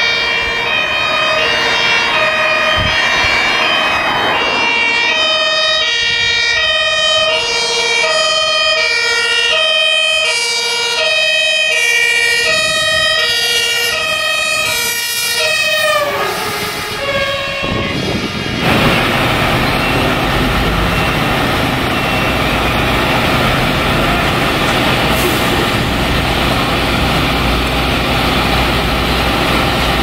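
German fire engine two-tone siren (Martinshorn), its two notes alternating steadily. About sixteen seconds in the notes slide down in pitch and stop as a fire engine passes close, and a loud, steady rumble and rushing noise of truck diesel engines follows.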